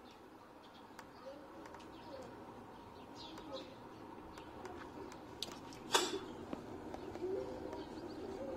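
Pigeon cooing softly, with a few faint high bird chirps and a single sharp knock about six seconds in.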